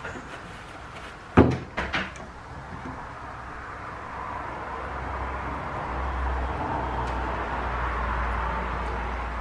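Sharp knocks on a wooden workbench, one loud one about a second and a half in and two lighter ones just after, as a small can of pipe glue and its lid are handled and set down. After that a steady rumbling noise slowly swells in the background.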